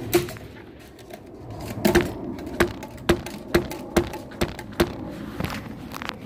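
A run of about eight sharp knocks, roughly two a second, each with a short ringing tone, from about two seconds in until near five seconds.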